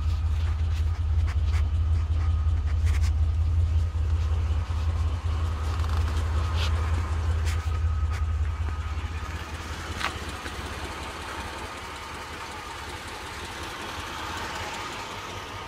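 1993 GMC Jimmy's engine idling, a steady low hum heard in the cab, growing fainter after about nine seconds. A few light clicks sound over it.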